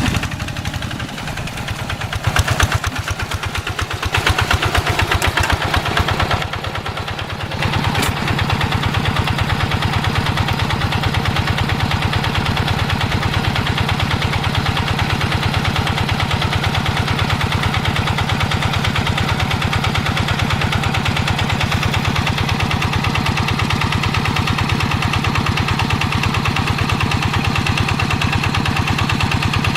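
Hand tractor's single-cylinder diesel engine working in deep paddy mud, its rapid pulsing beat surging and dipping under changing load for the first several seconds, then settling into a steady run from about eight seconds in.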